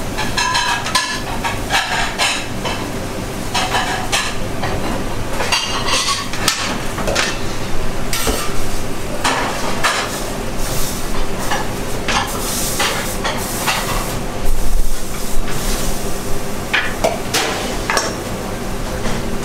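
Busy restaurant kitchen during service: a steady hum of kitchen ventilation under repeated clinks and clatters of plates, pans and metal utensils, with stretches of hiss. There is a heavy thump about three quarters of the way through.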